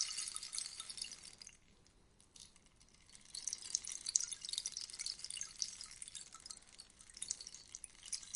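Rainstick: a cascade of small pellets pattering down inside the tube like rain, dying away about a second and a half in, then after a short lull a fresh cascade starts about three seconds in and runs on.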